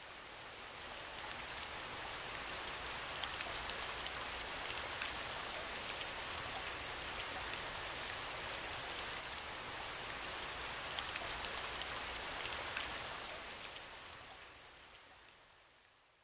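Steady rain ambience, an even hiss of falling rain with scattered drop ticks, quietly fading in at the start and fading out over the last few seconds.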